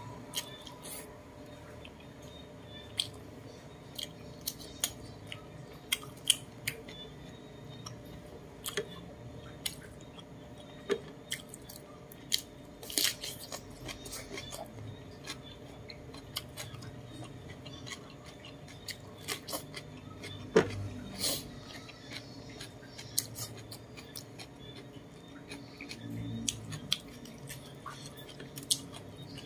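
Close-up eating sounds of roast chicken and cucumber: chewing with scattered sharp clicks and mouth smacks, the loudest about two-thirds of the way through.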